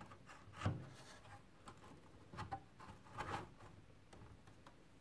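Faint handling noises of hands working on a circuit board inside an electronic instrument's chassis: a few light, scattered clicks and knocks, the plainest about a second in and around three seconds in.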